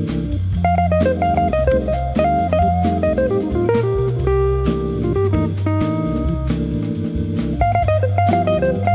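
Jazz organ trio playing: an archtop electric guitar solos in quick single-note runs over an organ bass line and a drum kit keeping time with cymbal strokes.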